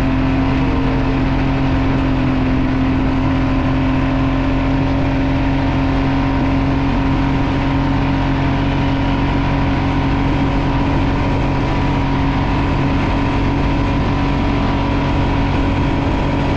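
Polaris Sportsman 570 ATV's single-cylinder four-stroke engine running at a steady, unchanging pitch while the quad cruises along.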